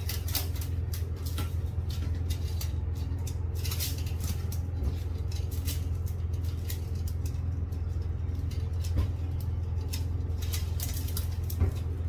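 Bundles of loose plastic fiber-optic buffer tubes rustling and brushing against each other as they are lifted and sorted by hand, over a steady low hum.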